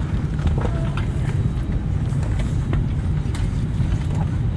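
Steady low rumble inside the cabin of an Airbus A319, with scattered small clicks and knocks.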